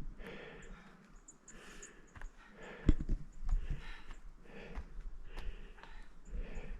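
A hiker breathing hard while climbing uphill, about one breath a second, with footsteps and a sharp thump about three seconds in.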